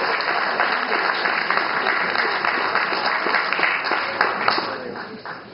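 Audience applauding: a dense patter of many hands clapping, dying away near the end.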